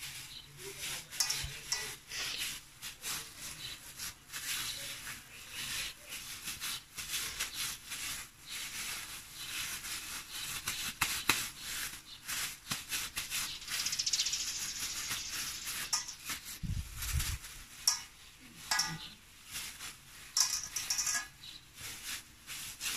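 Thin plastic food gloves crinkling and rustling as ground meat is squeezed and patted into a burger patty by hand, a steady run of small crackles. A dull thump comes about two-thirds of the way through.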